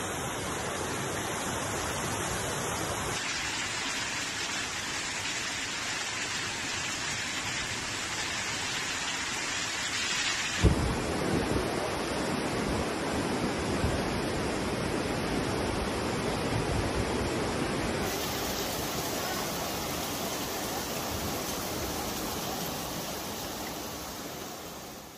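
Floodwater rushing through a street in heavy rain: a steady wash of water noise that changes in character three times as different clips follow one another, with a short low thump about eleven seconds in.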